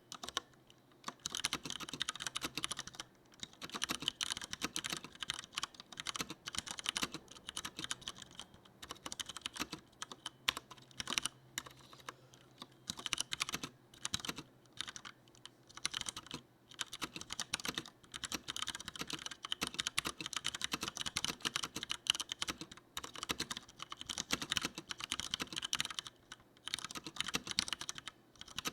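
Steady typing on a Leopold FC900R full-size mechanical keyboard with Cherry MX Brown tactile switches: fast runs of keystrokes broken now and then by short pauses.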